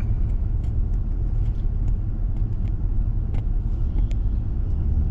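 Steady low road and engine rumble of a moving car heard from inside the cabin, with a few faint irregular clicks.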